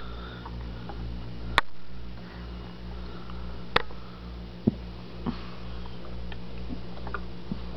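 Steady low electrical hum from aquarium equipment, pulsing slightly and evenly, with two sharp clicks about one and a half and four seconds in and a few fainter ticks after.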